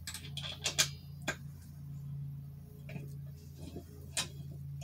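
Allen wrench clicking and ticking against the metal backrest bracket of a gaming chair as bolts are worked in: about six scattered sharp clicks, the loudest just under a second in. A steady low hum runs underneath.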